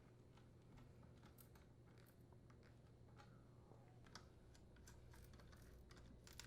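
Near silence with faint, scattered small clicks of screws and a screwdriver as they are fitted into the oven door's lower trim and hinges, over a low steady hum.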